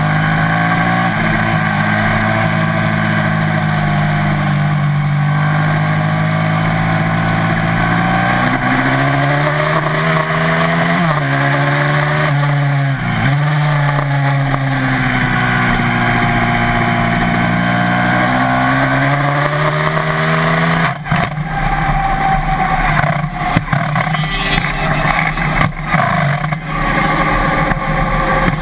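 1987 Ducati TT1's V-twin race engine at high revs, heard onboard. Its pitch rises and falls with a couple of sharp dips, then cuts out abruptly about three-quarters of the way through, leaving only wind rush as the bike coasts: the crankshaft has broken.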